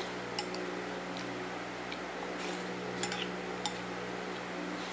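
Eating utensil tapping and clinking against a bowl of noodle soup while eating: several light, scattered clicks over a steady low hum.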